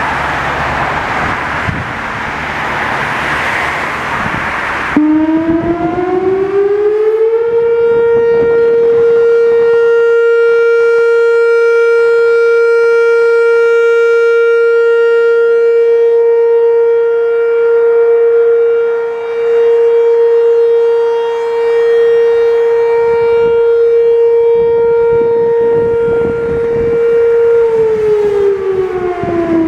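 Whelen WPS-4004 rotating electronic outdoor warning siren sounding a short steady alert for a siren test. About five seconds in, the tone glides up to one steady pitch with strong overtones. It swells and fades twice as the turning speaker head points away, then glides down near the end. Before the siren starts there is a loud rushing noise.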